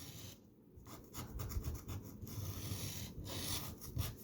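Rapid scraping strokes rubbing the coating off a scratch-off lottery ticket, with a short pause about half a second in.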